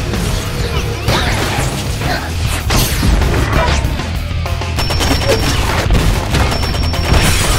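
Action-film sound mix: explosions and crashes with gunfire over a music score, with a heavy continuous low rumble and many sharp impacts throughout.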